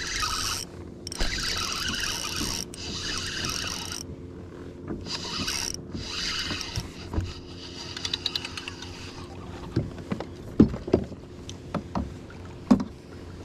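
Fishing reel being cranked in quick spells with short pauses while a bass is fought toward a kayak, followed by a run of sharp splashes and knocks as the fish thrashes at the boat's side.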